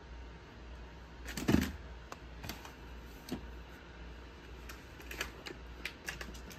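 Plastic VHS clamshell cases being handled: scattered light clicks and taps, with one louder thump about a second and a half in.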